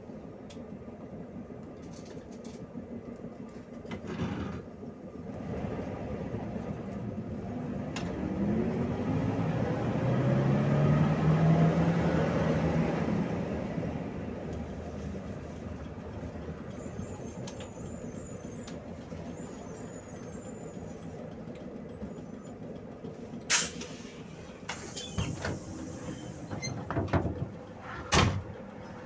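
Cabin sound of a PAZ 32054 minibus running on LPG: its V8 engine and road rumble, with the engine note rising and holding loudest around the middle as the bus pulls away. Near the end come a sharp knock, a hiss of air and a few more knocks from the bus's pneumatic brakes and door.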